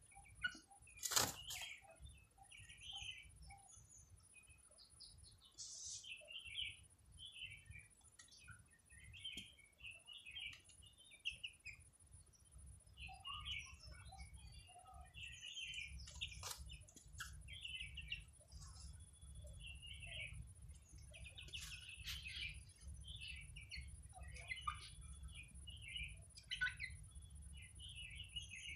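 Birds chirping: many short, high chirps scattered throughout, with a sharp click about a second in and a low rumble under the second half.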